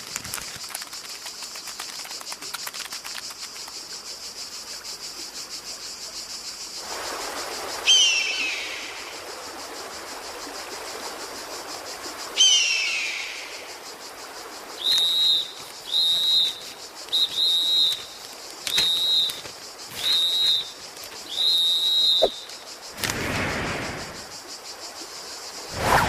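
Sound effects for an animated short: a steady high hiss, then two loud falling whistles a few seconds apart. After those come six short, high, bird-like peeps about a second apart, and two whooshing swells near the end.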